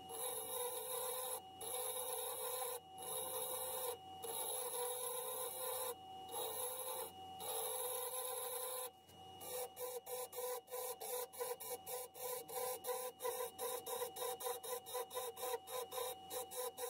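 Variable-speed wood lathe running with a steady electric whine while a turning chisel cuts the spinning wood blank. The sound breaks off briefly a few times in the first half, and about halfway through turns into a fast, even pulsing of about five beats a second.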